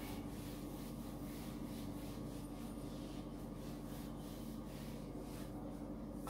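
Whiteboard duster wiping across a whiteboard in quick, repeated back-and-forth strokes.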